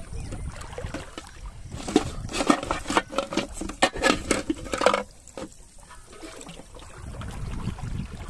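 Water splashing in a quick irregular run of splashes from about two to five seconds in, as a fish is handled in a plastic-bottle trap. Before and after, a low steady rumble of pond water around a wading person.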